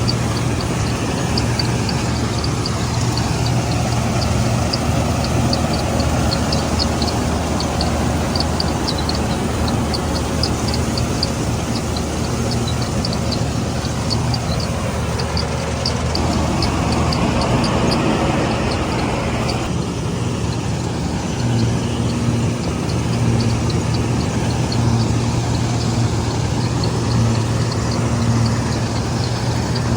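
Combine harvester running steadily with a deep engine hum. A quick, high mechanical ticking rides over it and fades out about two-thirds of the way through, and the machine's pitch dips and rises again around the middle.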